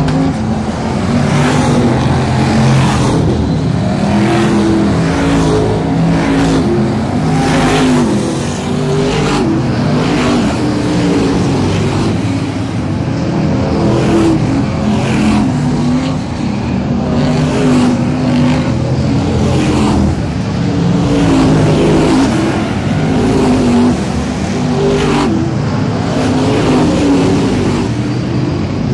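Several Brisca F1 stock cars' V8 engines racing round the oval, the engine note rising and falling as cars accelerate and pass.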